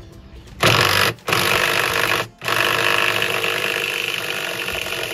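Impact wrench fitted with a 36 mm socket hammering on a nut of a washing machine being dismantled, in three bursts: a short one about half a second in, another of about a second, then a long run of about three seconds.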